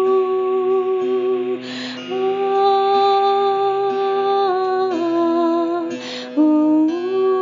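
A woman's voice holding long wordless notes, stepping to a new pitch now and then, with a breath taken about two seconds in and again about six seconds in. A steady low drone continues underneath.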